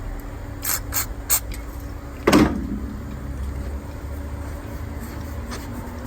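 Honda Civic's B-series engine idling steadily with a low hum. Three short high-pitched bursts come in quick succession about a second in, and a louder thump follows a little over two seconds in.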